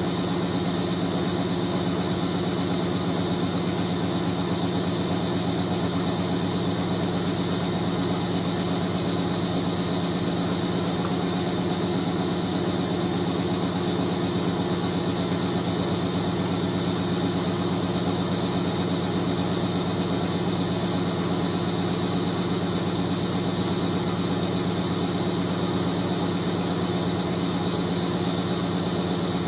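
Hoover A3060 Electronic 1100 front-loading washing machine on a steady spin: the motor hums at a constant pitch with the drum rushing round, the level unchanging throughout.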